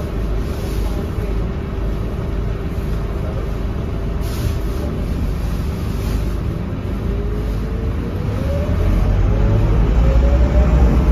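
A Scania K230UB bus's five-cylinder diesel engine heard from inside the cabin, at first running with a steady hum. A brief hiss comes about four seconds in. From about seven seconds the bus pulls away: the engine note rises in pitch and grows louder.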